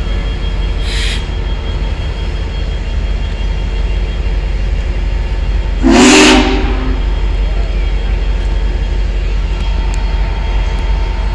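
Union Pacific Big Boy steam locomotive rumbling steadily, with a short hiss near the start and, midway, one short blast of its steam whistle lasting about a second, the loudest sound.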